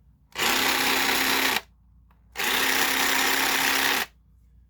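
Dewinner 20 V cordless jigsaw running with no load in two short trigger pulls, each lasting about a second and a half at a steady speed, with a brief stop between.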